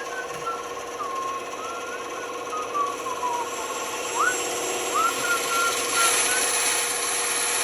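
Band saw running and cutting wood, a steady motor hum under a whine that wavers up and down in pitch, with a rise in cutting hiss about six seconds in.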